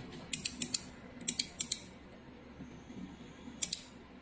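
Sharp, small clicks in quick groups: four, then four more, then a pair near the end, typical of buttons or a mouse being clicked. Under them run a faint steady high-pitched tone and a low hum.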